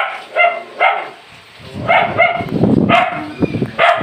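A dog barking repeatedly in short, sharp barks, in a few quick bursts of two or three.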